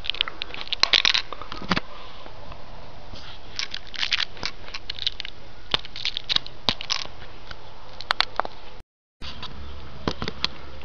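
Handling noise: irregular clicks, taps and scrapes as a small headphone speaker driver and its alligator-clip leads are picked up and set down on a table, over a steady hiss. The sound cuts out for a moment about nine seconds in.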